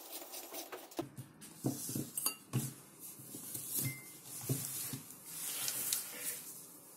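A light bulb being screwed into the socket of a clip-on desk lamp, then the lamp and its cord being handled and set down on newspaper: scattered small clicks, knocks and rustles.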